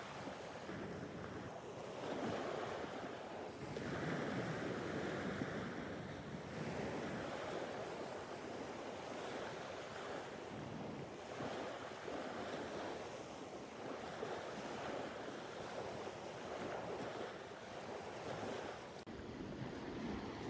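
Small sea waves breaking and washing up the shore, the surf swelling and easing every couple of seconds.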